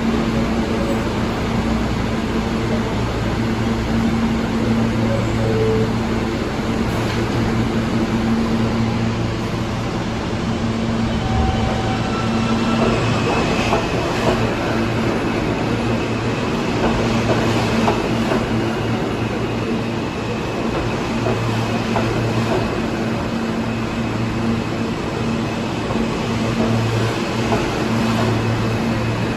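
R160 subway train running through the station: a steady rumble of wheels and motors with a low hum. A high, steady whine comes in about halfway and holds.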